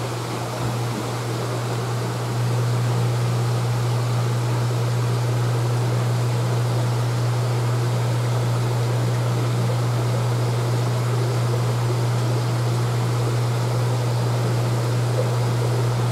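Steady low hum with an even watery hiss from an aquarium tank's pump and aeration, getting a little louder about two seconds in.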